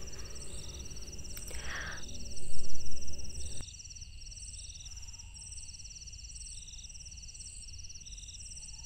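Crickets chirping in a steady repeating pulse over a faint hum, with a short breathy sound about two seconds in and a louder low swell just after.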